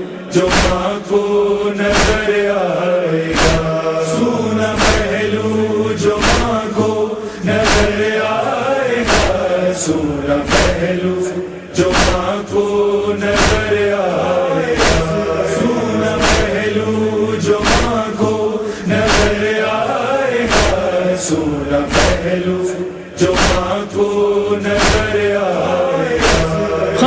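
Voices chanting a slow, mournful noha melody without clear words, over a steady beat of sharp strikes, a little more than one a second.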